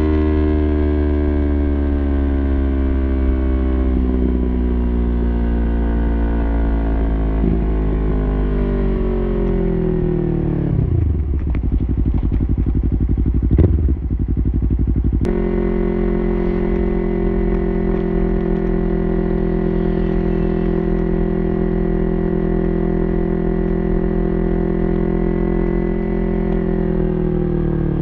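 Yamaha YZF-R3's parallel-twin engine through an Arrow Pro-Race full exhaust system, under way. The revs fall slowly, then sit low with one short blip of throttle. About halfway through the engine note jumps abruptly higher and holds steady, then the revs fall again near the end.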